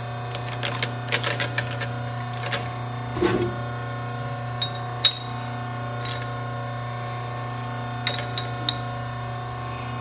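A steady electric hum with scattered light metallic clicks and clinks over it: a cluster in the first two seconds, a sharp single click about five seconds in, and a few more near the end.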